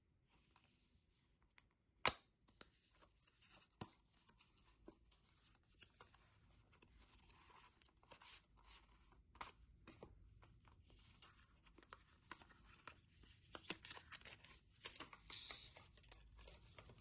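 Packaging being opened and handled: faint rustling and tearing with scattered light clicks and taps, and one sharp click about two seconds in.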